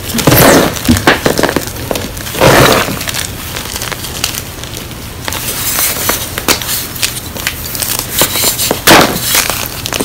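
Blocks of gym chalk crunching and crumbling between the fingers, with loose chalk pieces crackling and clicking as they are gripped and rubbed. Louder crunches come about half a second in, around two and a half seconds, and near the end.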